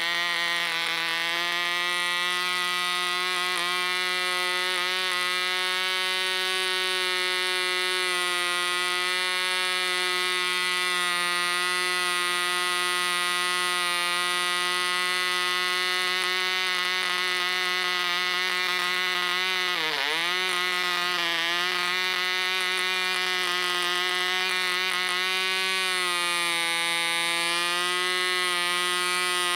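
SAM 35 special edition 0.5cc model diesel engine with a 6x4 propeller running steadily at high speed on its first run-in, while its compression screw is adjusted. About twenty seconds in, the engine speed sags briefly and picks up again.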